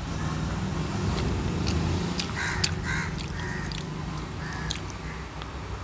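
A crow cawing a few short times, clearest about two and a half to three seconds in, over a low steady background rumble, with close chewing and mouth clicks from someone eating.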